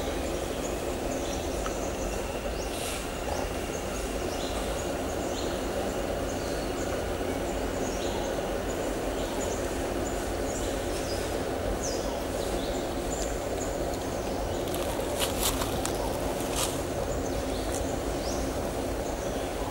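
Steady outdoor background noise with a low hum, scattered with faint short bird chirps; a few sharp clicks come together about fifteen seconds in.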